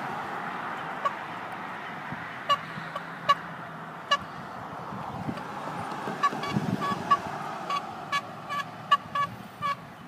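Bicycle horn honked in short toots, a few spaced out at first, then a quick run of about a dozen in the second half, over passing road traffic.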